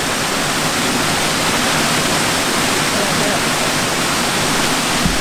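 Waterfall rushing, a steady loud hiss of falling water. A brief low thump comes near the end.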